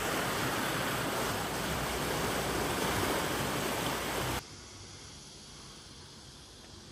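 Sulphur spring water rushing and churning as it pours out, a steady loud rush that cuts off abruptly about four seconds in to a faint outdoor background.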